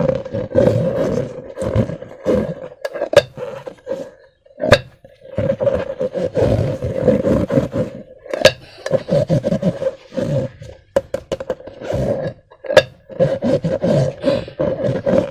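Hands squeezing and working slime and rubber balloons: irregular sticky squelching with a rubbery groan, broken by a few sharp pops.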